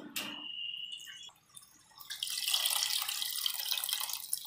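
Tamarind juice squeezed by hand from soaked tamarind pulp and streaming into a pot of simmering fish curry: a steady splashing trickle that starts about two seconds in. Before it, a short ringing clink.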